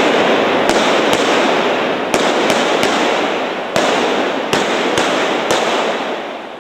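Prop guns firing blanks: a string of about eight sharp cracks, irregularly spaced, over a loud continuous rushing noise that fades away near the end.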